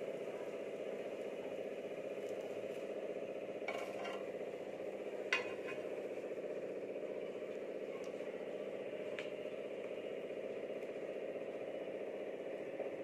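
A few light metal clinks of a wire frying skimmer against a steel kadai and a plate, the loudest about five seconds in, over a steady low hum.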